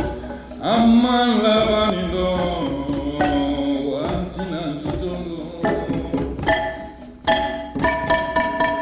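Choir singing with drum and percussion accompaniment: sustained and gliding voices, with quick, rhythmic drum strokes that grow busier in the second half.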